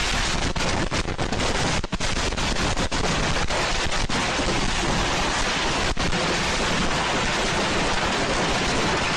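Firework going off at ground level at close range: a loud, steady wall of hissing and crackling with no separate bangs.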